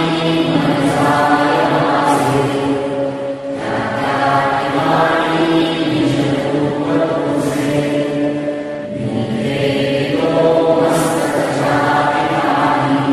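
Soundtrack music with a group of voices chanting in unison, in long held phrases.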